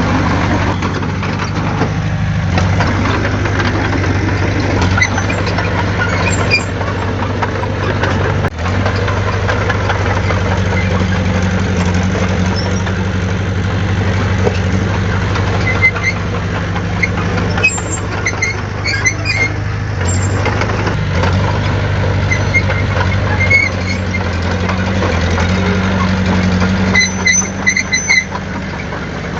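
Heavy diesel engine of earthmoving equipment running steadily, its pitch shifting a few times. Short high squeaks come and go about two-thirds of the way in and again near the end.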